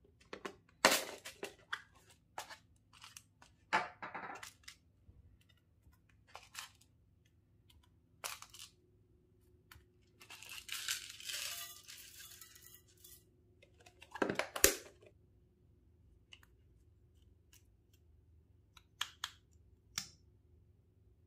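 A small plastic box being handled, with scattered sharp clicks and knocks of its lid and sides. About ten seconds in, water beads and sequins rattle and pour out of it into a glass bowl for a few seconds, and a few lighter clicks come near the end.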